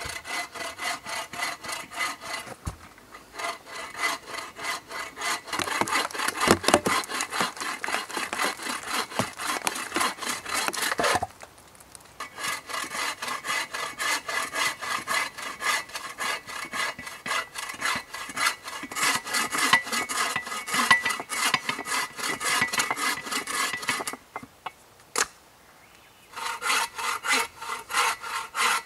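Folding bow saw cutting through a log with rapid back-and-forth strokes in a steady rhythm. The strokes stop briefly about a third of the way through, and again for a couple of seconds near the end, where there is one sharp click.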